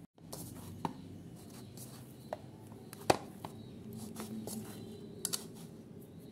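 A hand kneading flour-and-water ruti dough in a plastic bowl: soft working sounds with scattered light knocks against the bowl, the sharpest about three seconds in.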